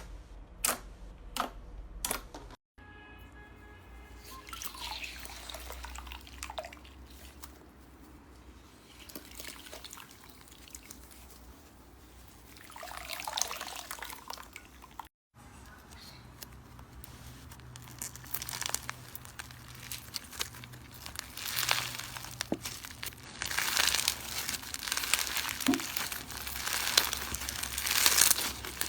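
Slime being pressed and stretched by hand, making sticky crackling, squishing and popping sounds. A few sharp clicks come in the first couple of seconds, and the crackling grows denser and louder near the end.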